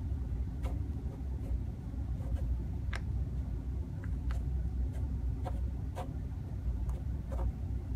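Fingers with long painted nails pressing and rubbing a makeup wipe onto crushed pressed powder in a plastic compact, packing the shattered powder back together: faint rubbing with a few light clicks, over a steady low rumble.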